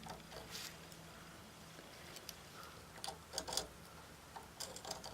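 Scattered light clicks and taps of small hand tools being handled and set down while hole positions are laid out on a cast iron part, the sharpest few coming about three and a half seconds in. A faint low hum fades out in the first second.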